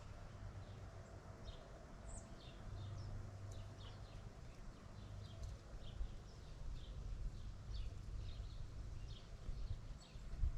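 Small birds chirping in short, high notes that slide downward, repeated several times a second, over a steady low rumble.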